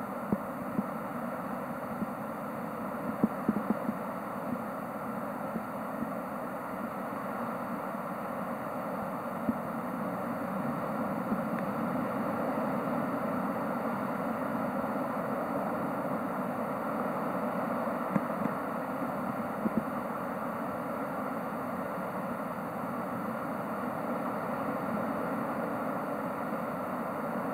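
Steady underwater rushing noise in a shallow rock pool, heard through a submerged camera, with a few scattered sharp clicks.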